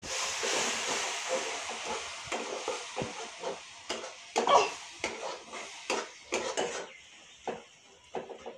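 Metal spatula stirring vegetables frying in a metal kadai, scraping and clinking against the pan many times. A sizzle is strongest at first and dies down over the first few seconds.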